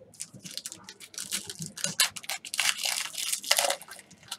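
Crinkling and tearing of a trading-card pack wrapper being ripped open and handled, in a rapid run of crackles that is densest in the second half.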